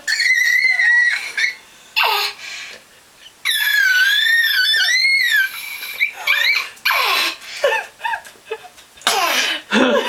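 A baby's high-pitched, strained squeals: two long held ones, the second wavering in pitch. Choppy laughter follows in the second half.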